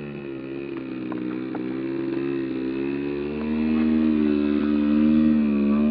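100cc gasoline two-stroke engine of a large Extra 300 RC aerobatic plane running in flight, its pitch wavering a little with the throttle. It grows louder about halfway through.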